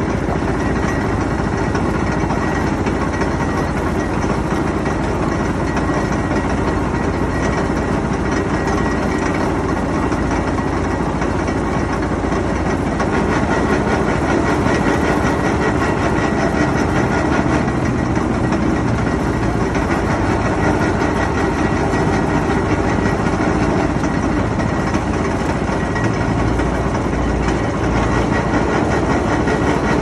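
Motor-driven sugarcane juicer running steadily while cane stalks are fed through its crushing rollers, with a faint high whine over the engine noise.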